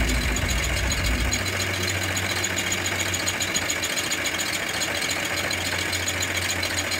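Small steam engine on a converted lawn tractor running steadily on high-pressure steam, with a fast, even mechanical clatter over a hiss. A low rumble underneath drops away about a second and a half in. It sounds kind of weird, which the owner puts down to its inaccurate cam timing.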